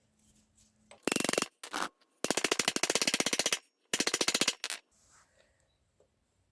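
An impact wrench hammering in five short trigger bursts of rapid, even blows, the longest over a second, as fasteners are worked loose during the engine teardown.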